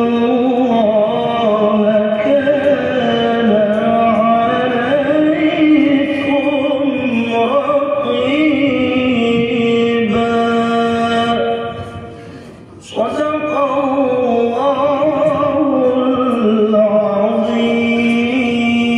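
A man reciting the Quran solo in the melodic tilawah style into a handheld microphone: long, ornamented, held notes that rise and fall. The voice breaks off for a breath about twelve seconds in, then resumes.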